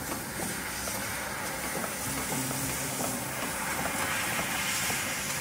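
Fiber laser cutter slicing through stainless steel sheet: the assist-gas jet from the cutting head gives a steady, loud hiss, with faint ticks among it.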